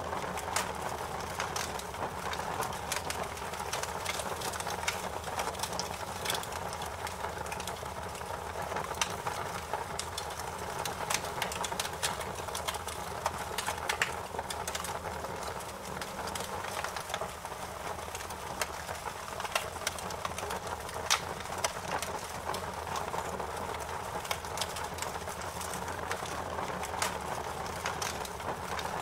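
Wood fire crackling in a fireplace: irregular sharp pops and snaps over a steady hiss and low rumble.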